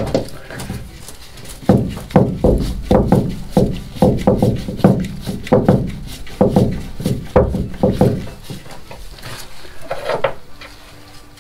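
Screws being driven by hand with a screwdriver into a shower drain's mounting plate. They creak in short squeaks about twice a second for several seconds.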